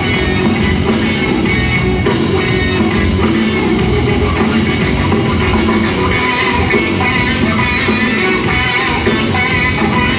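Rap-rock band playing live and loud: distorted electric guitar, bass and drums, heard from the stands of an arena.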